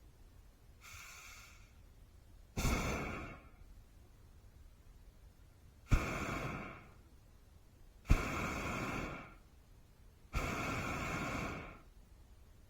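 Hot air balloon's propane burner firing in short blasts: one faint blast about a second in, then four loud ones every two to three seconds. Each lasts about a second and starts abruptly.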